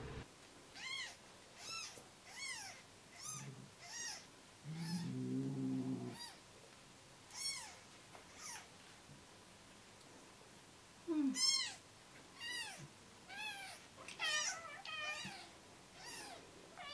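Three-day-old newborn kitten crying with short, high squeaky mews that rise and fall in pitch, about one or two a second. The cries pause briefly in the middle and then pick up again, the loudest coming about eleven seconds in. About five seconds in there is a lower, drawn-out pitched sound lasting about a second and a half.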